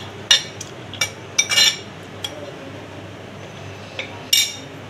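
Steel spoon knocking and scraping against a plastic bowl as cooked tapioca pearls (sabudana) are tipped out into a blender jug: a handful of short, sharp clinks, with a longer clatter near the end.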